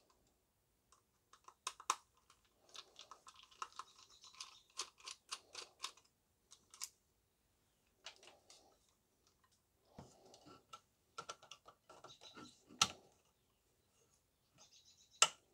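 A small Torx screwdriver turning screws out of a plastic vacuum housing: faint clicking and scraping in runs of quick ticks. A few sharper plastic clicks come as parts are handled, the loudest near the end.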